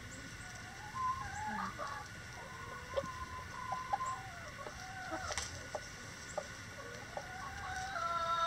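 Backyard hens clucking and calling in short notes, then a rooster crowing near the end: one long call that grows louder.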